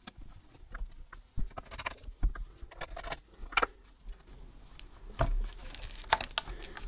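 Irregular clicks, taps and light rattles of hands handling a laptop's LCD panel and small repair tools, with a few duller bumps.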